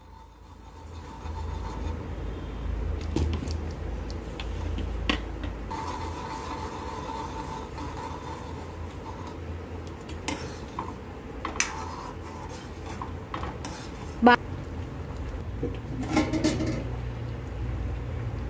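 A steel spoon stirs wheat rava into boiling water in a metal kadai, scraping and clinking against the pan, with one sharp clink about 14 seconds in. A low steady rumble runs underneath.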